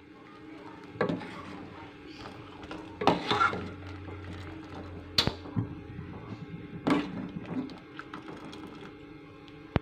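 Metal ladle stirring fish cakes in a stainless steel pot of boiling water, knocking and scraping against the pot several times, a second or two apart. A steady low hum runs underneath.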